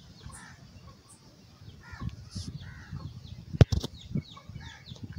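Two sharp metallic clicks about three and a half seconds in, from a ring spanner working on a motorcycle's oil drain bolt, over low handling rustle. Faint bird chirps in the background.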